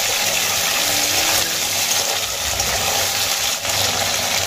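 Potato wedges frying in hot oil in an aluminium kadai: a steady, even sizzle, with a spatula stirring them at first.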